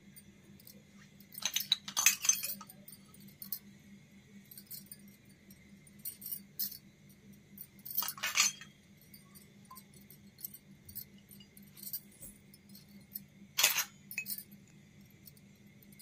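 Miniature metal toy pots and bowls clinking lightly as they are set down and handled on a table: a run of taps about two seconds in, another near eight seconds and a single sharp clink near fourteen seconds, with small ticks between. A faint steady hum lies under it.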